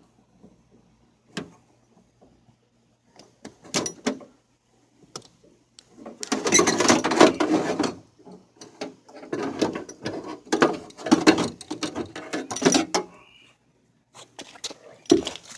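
Old power window regulator being worked out of a car door: a few sharp clicks, then bursts of metal rattling and scraping against the door panel.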